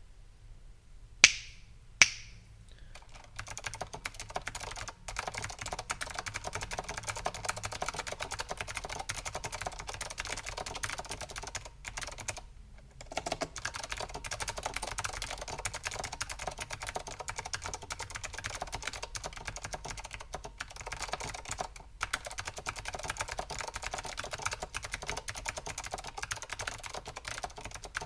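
Fast, continuous typing on a Leading Edge DC-2014 keyboard with clicky blue Alps switches and doubleshot ABS keycaps: a dense stream of sharp key clicks. Two louder single clicks come first, and the typing stops briefly around the middle.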